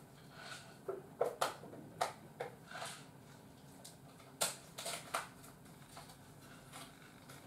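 Faint, irregular rustling and soft clicks of handling, from bedding and a handheld phone being moved about.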